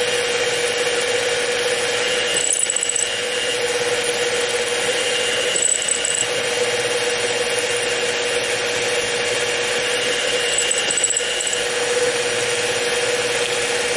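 Harbor Freight X2 mini mill running, a letter-F twist drill cutting through aluminum: a steady whine from the mill with dense cutting noise, and a few brief louder scrapes.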